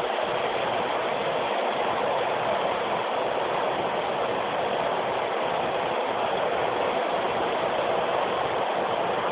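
Steady, even background noise: a constant hiss with no speech and no distinct events.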